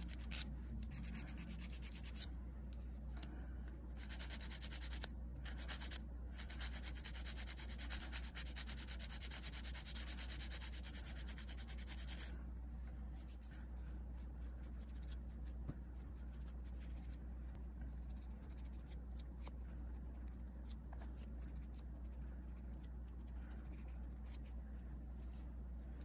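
Hand nail file rasping against clear artificial nail extension tips, shaping them in a run of strokes with brief pauses, stopping about halfway through.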